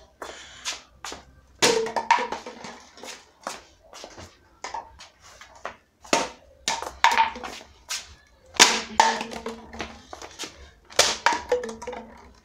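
Irregular series of sharp knocks and taps, several followed by a brief pitched ring, with louder clusters about two, six, nine and eleven seconds in.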